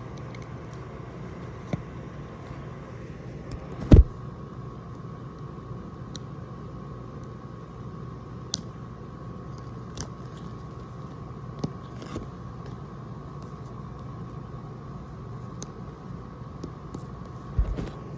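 A sealed cardboard box being handled and picked at to get its seal off: scattered small clicks and scratches with a loud knock about four seconds in and another thump near the end, over a steady background hum.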